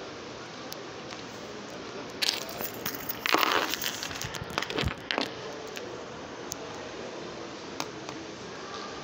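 Crinkling and crackling handling noise close to the microphone for about three seconds, from about two seconds in, over a steady background hubbub.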